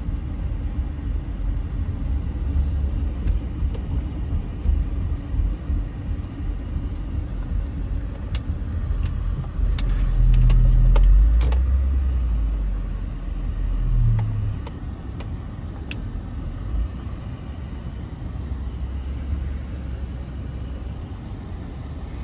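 Car driving, a steady low rumble of engine and road noise that swells for a few seconds midway, with a scatter of sharp clicks.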